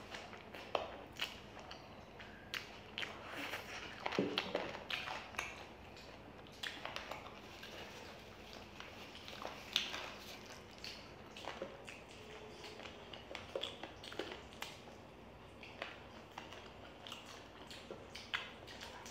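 Close-miked eating sounds: two people chewing and biting into spicy fried chicken and noodles, with irregular wet smacks and clicks.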